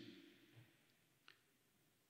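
Near silence: faint room tone in a lecture hall, with one faint click a little over a second in.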